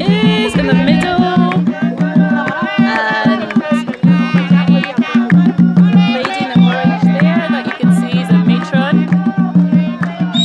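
Live traditional drumming with a steady beat, and a group of women singing over it.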